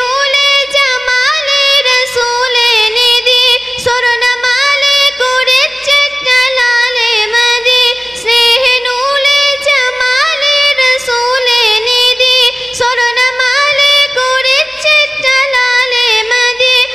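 A girl singing a devotional ghazal in Malayalam, solo and with no instruments, in a high voice with wavering, ornamented melodic runs.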